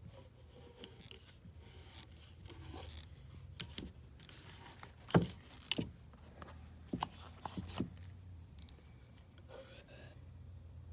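Scraping and rubbing handling noises, with a handful of sharp knocks and clicks about halfway through, the first the loudest, over a steady low hum.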